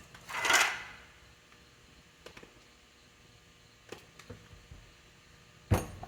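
Metal pump parts being handled on a workbench: a short scrape about half a second in, a few light clicks in the middle, and one sharp metallic knock near the end.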